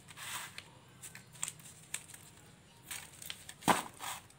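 Damp sand being scraped up by hand and packed into a cut-off plastic mineral-water bottle: scattered gritty scrapes and crinkles of thin plastic, with one sharp knock a little before the end.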